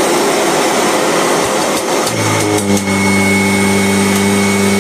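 Kirby Generation 4 upright vacuum running loudly with a rushing airflow; about two seconds in, a steady hum sets in, with a few clicks around the change. The machine has not been run in a while.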